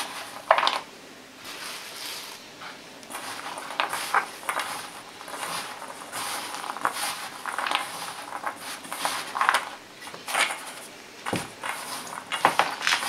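Hands tossing and rubbing raisins in flour in a metal bowl: irregular rustling and scraping of the floured fruit against the bowl's sides.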